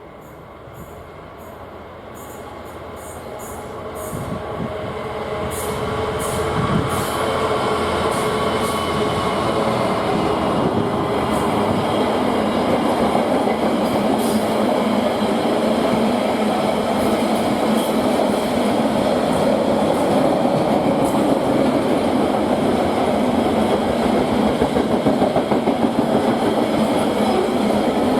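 A freight train approaching and passing close by. It grows louder over the first six seconds or so into a steady, loud rumble of wheels on rail, with a few sharp clicks near the start.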